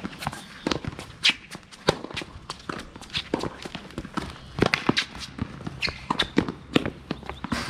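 Footsteps and scuffing shoes on a hard tennis court, among many sharp, irregular knocks.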